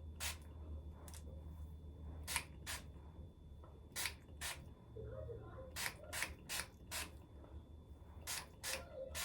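Heat-protectant spray bottle spritzed onto hair over and over: about a dozen quick, short sprays at uneven intervals, over a low steady hum.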